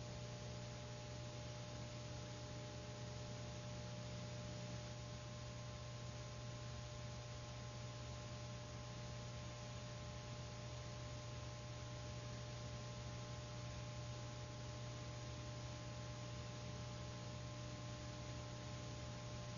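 Faint, steady electrical hum with a few thin steady tones over even tape hiss, the empty soundtrack of an old film transfer; the explosion itself is not heard.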